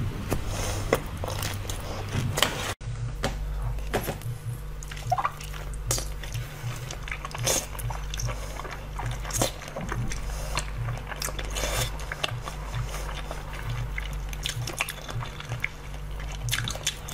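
Close-miked eating sounds: sharp bites and wet, sticky chewing and smacking of soft novelty food. Under them runs a low, evenly pulsing background beat.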